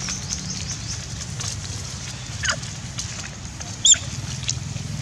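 Young macaques squealing: one sharp falling squeal about halfway through and a short, loud, shrill cry near the end, over a steady low hum.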